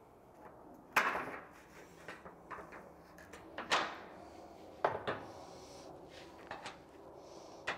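Aviation snips cutting a notch into a sheet-metal standing seam roof panel: a series of sharp metallic snips as the jaws close through the metal, the loudest about a second in, with more a few seconds later and near the end.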